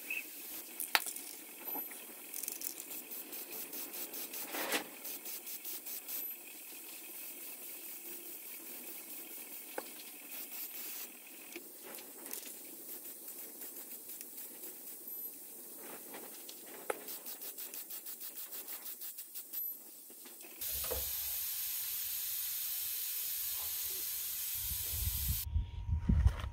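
Steady hissing with runs of rapid, evenly spaced ticking. Near the end it cuts to a steady low rumbling noise.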